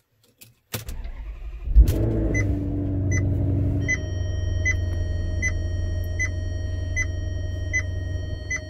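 Maserati GranTurismo's V8 being started: the starter cranks for about a second, the engine catches with a brief rev flare and settles into a steady idle. A short high-pitched warning chime beeps over it a little more than once a second.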